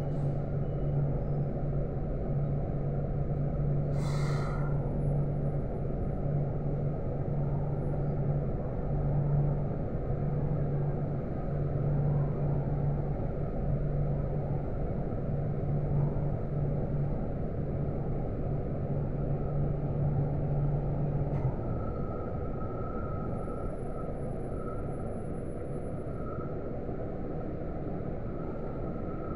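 City bus standing with its engine idling, heard from inside the cabin: a steady low hum that stops about two-thirds of the way through, leaving a softer rumble. A short hiss of air about four seconds in.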